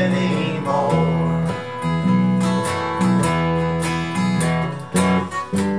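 Acoustic guitar strumming chords over an electric bass line, the bass notes changing about once a second.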